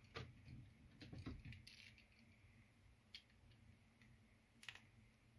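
A handful of faint, scattered clicks and taps as the plastic shell and circuit board of a Renault card key are handled.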